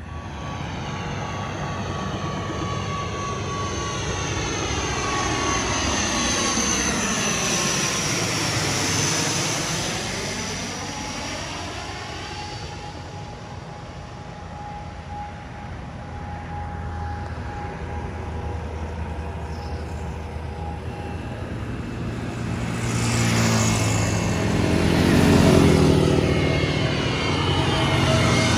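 ATR 72-500 turboprop airliner flying low overhead on landing approach, its propeller engines droning with a tone that drops in pitch as it passes. Later an Airbus A320neo's jet engines grow louder as it comes in low to land, loudest near the end.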